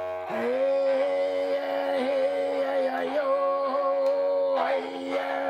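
A single-string horn fiddle, a bowed string with a brass horn for its resonator, holding one long nasal note after a short change of stroke just in, then starting a new stroke near the end.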